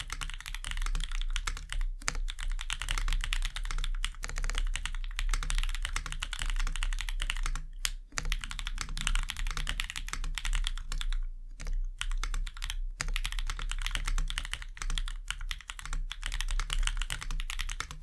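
Rapid, steady typing on a mechanical keyboard with MX-style switches whose keycaps sit on ergonomic tilter adapters, a fast run of key clicks with a few brief pauses. A faint low hum lies underneath.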